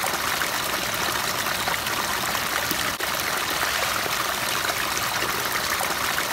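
Water running and splashing over rocks in a small cascade close to the microphone, a steady trickling and spilling.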